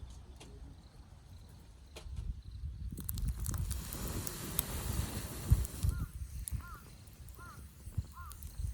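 Scattered light clicks with low rumble, a rush of noise swelling in the middle, then a bird calling over and over, short rising-and-falling notes about twice a second, in the last few seconds.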